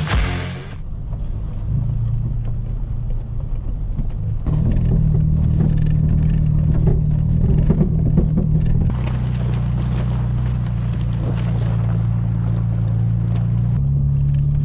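Off-road truck engine running steadily at low trail speed; its hum shifts to a new pitch a few times.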